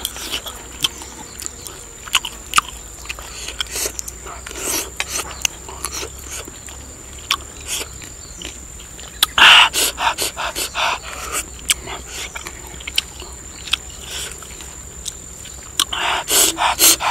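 A person eating up close: chewing and lip-smacking, with small clicks of wooden chopsticks against a clay bowl. There are louder clusters of breathy mouth sounds about ten seconds in and again near the end.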